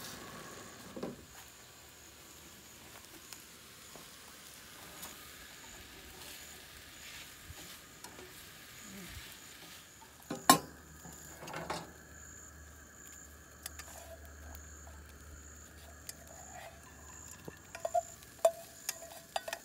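Food sizzling quietly in a pan on a propane camp stove, with one sharp metal clank of cookware about ten seconds in, a lighter one just after, and a few light clinks and scrapes of a spatula in a skillet near the end.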